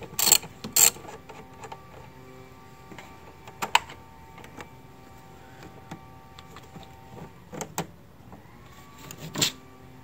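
Scattered clicks and knocks of hands and tools working a battery cable off its terminal stud at the Jeep's power distribution center, over a faint steady hum.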